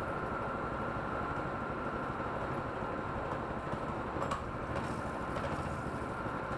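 A small single-cylinder minibike engine running steadily at idle. A few footsteps scuff on the concrete floor about four seconds in.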